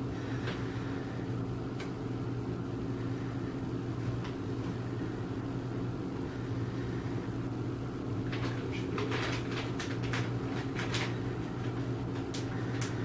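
Steady low mechanical hum, with a few short clicks and rustles in the second half.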